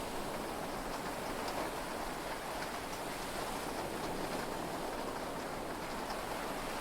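Heavy rain heard from inside a yacht's cabin: a steady, even hiss with faint patter of drops.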